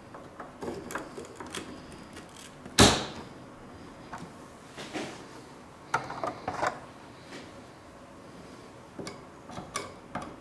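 Clicks and knocks of memory modules being handled and pressed into motherboard slots, with one sharp, loud click about three seconds in and smaller clusters of clicks later.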